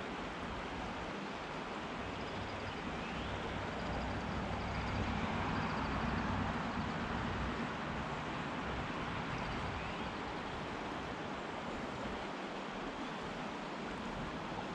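Steady rushing of a shallow, rocky river flowing around the wader, swelling a little about five seconds in.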